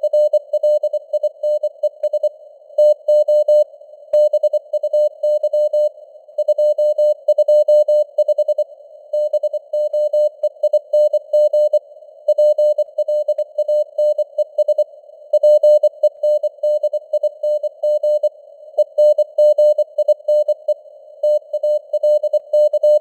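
Morse code (CW) sent at 24 words per minute: a single mid-pitched tone keyed on and off in dots and dashes, with gaps between characters and words. Underneath is simulated radio band noise, a soft hiss around the tone, with the signal strength varying as in QSB fading.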